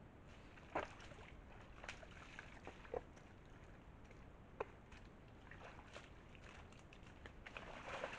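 A red deer moving and scratching in grass and leaf litter: faint rustling with a few sharp snaps over a steady hiss, and a denser rustle near the end.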